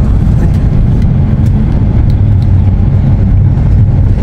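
Steady low rumble of engine and road noise heard from inside a moving vehicle.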